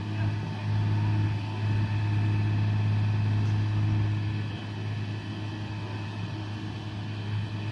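Mobile crane's engine running steadily with a deep, even hum while the crane holds and swings a suspended mobile home; it eases a little quieter about halfway through.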